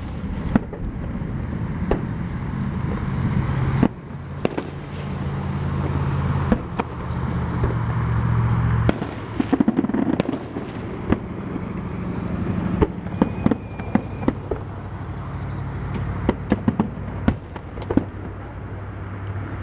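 Fireworks going off: many sharp bangs and pops at irregular intervals, over a steady low hum.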